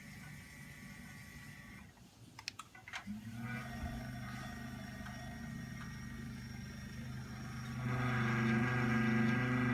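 Electric standing desk (Smart Desk 2) with a few clicks, then its lift motor humming steadily as the desk moves, louder from about eight seconds in. This is the noise the owner finds unusual.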